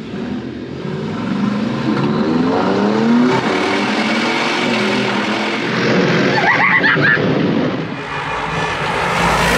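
Alfa Romeo Stelvio Quadrifoglio's 2.9-litre twin-turbo V6 accelerating hard from inside the cabin, its pitch rising again and again as it climbs through the gears.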